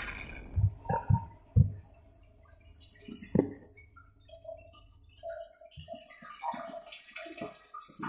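Inside a Bosch SGV43E93EU dishwasher in its rinse cycle, just after the spray stops: water drips and splashes in the tub, with several louder thuds in the first few seconds. A low machine hum cuts out about five seconds in, and dripping and gurgling go on. The sound is muffled, as through a sealed phone case.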